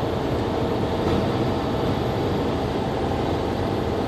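Heavy truck's engine and road noise heard from the cab, a steady low rumble while descending a long grade.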